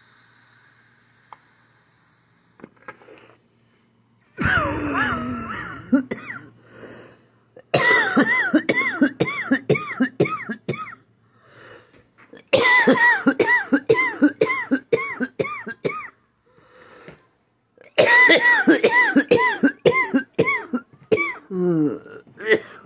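A person coughing hard in four long fits, each a rapid run of voiced hacking coughs about three a second, with short pauses for breath between the fits.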